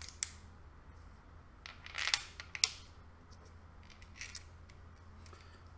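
Steel gears and a gear shaft from a Formula Ford gearbox clinking against each other and the bench as they are handled and set down. There are several sharp metallic clinks: one just after the start, a cluster around two to three seconds in, and another pair a little after four seconds.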